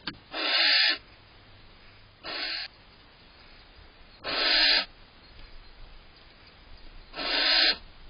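Female barn owl giving harsh, hissing screech calls: four half-second bursts two to three seconds apart, the second fainter. They are a sign of her annoyance as the male eats cached prey.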